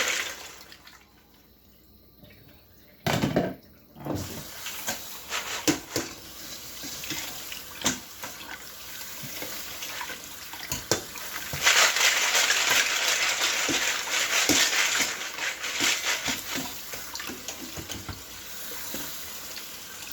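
Tap water running into a sink over a colander full of plastic computer keycaps, with the keys clicking and rattling against each other. The water starts a few seconds in and runs harder for a few seconds around the middle.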